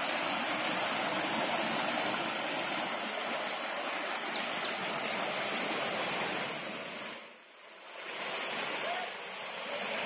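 Stream water rushing in small cascades over rock slabs, a steady hiss. It dips briefly about three-quarters of the way through, then picks up again.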